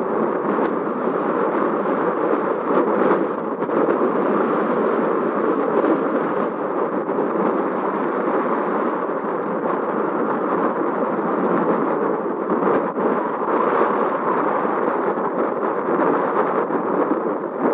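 Steady rushing roar of aircraft engines, with no clear pitch.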